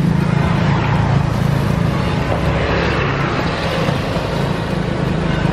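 Motorbike engine running steadily at cruising speed, heard from on the road, with wind rushing over the microphone.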